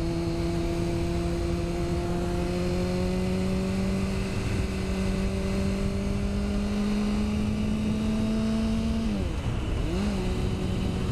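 Honda CBR600RR inline-four engine running under steady throttle, its pitch slowly rising, then the revs drop about nine seconds in and dip twice before settling lower. Steady wind rush over the helmet-mounted microphone.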